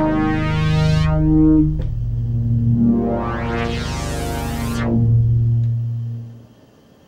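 Behringer DeepMind 12 analogue polyphonic synthesizer playing a sustained pad chord, its tone sweeping brighter and back down. The chord changes about two seconds in, and the sound fades away about six seconds in.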